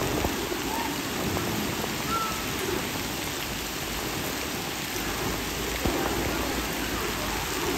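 Heavy rain falling, a steady hiss without a break.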